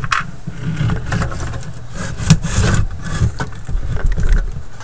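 Record-changer deck being set into its wooden cabinet: irregular knocks, scrapes and rubbing of the deck against the wood, with the loudest knock a little before halfway.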